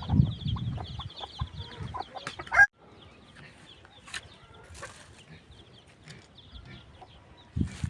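Chickens clucking, with many short high chirps over them, which cut off abruptly about two and a half seconds in, leaving only faint background sound until more low clucking starts near the end.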